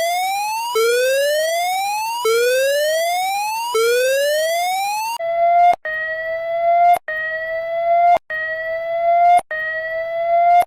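Electronic emergency-alert siren: a buzzy tone sweeping upward about every second and a half, then, about five seconds in, switching to shorter, nearly level tones repeating about every 1.2 seconds, each cut off by a click.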